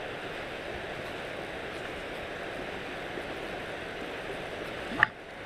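Steady rushing noise while a hooked trout is reeled in on a spinning rod and splashes at the surface. About five seconds in comes one short, sharp sound, the loudest moment.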